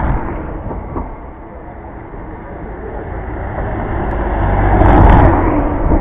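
A small passenger van driving past close by: engine and tyre noise growing louder as it approaches, peaking about five seconds in, then easing off as it goes by.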